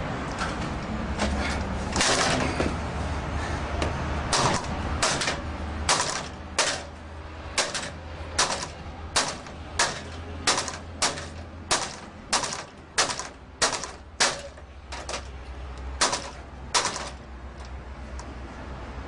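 A steel pry bar forced against the lock of an Xpanda steel security gate: a run of sharp metal clanks, about one and a half a second, starting a few seconds in and stopping near the end, as the gate is levered in a break-in attempt.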